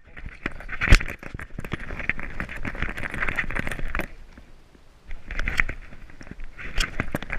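Handling noise from a camera worn on a dog's collar: rattling, scraping and quick clicks and knocks as the dog moves, easing off for about a second near the middle.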